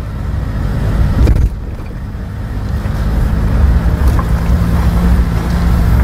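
Vehicle driving along an unpaved forest track: a low, steady engine drone under the rumble of tyres on dirt and gravel. There is a louder jolt of rumble about a second in, and after it the drone grows gradually louder.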